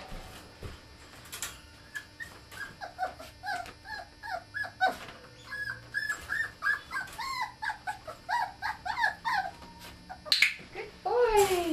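Ten-week-old Border Terrier puppy whining and crying in a rapid string of short, high, falling cries, several a second, with a louder, longer falling yelp near the end. It is the crying of a young puppy left alone, which the owner says gets wild when she goes away.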